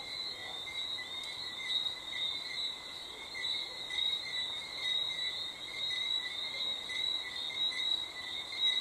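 Crickets chirping in a steady night chorus, a high trill with a lower one beneath it.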